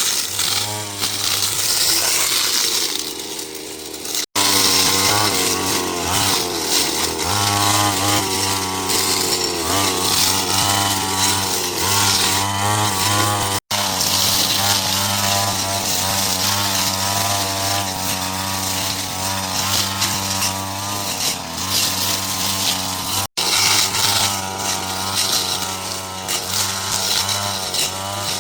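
Small engine of a handheld power tool running steadily at speed, its pitch wavering as it works. It cuts out for an instant three times.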